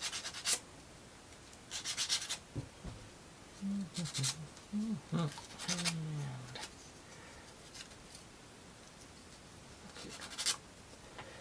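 Laser-cut plywood kit pieces clicking and scraping as they are handled and fitted together, in several short bursts of clicks. A person's low voice briefly mumbles a few seconds in.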